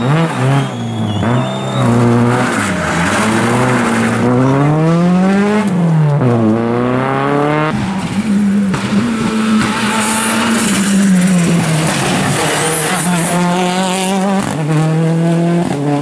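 Rally car engines at racing revs: the first car, a Renault Clio, climbs and drops in pitch through several gear changes and lifts off for a bend. After a cut about eight seconds in, another rally car holds a steadier high-revving note, shifting again near the end.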